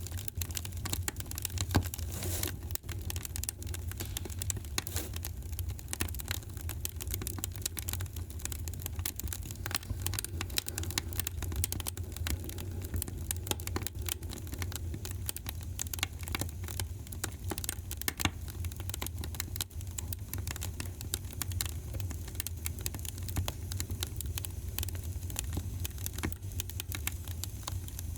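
Wood fire crackling in a fireplace: dense, irregular pops and snaps over a steady low rumble, with one louder pop just under two seconds in.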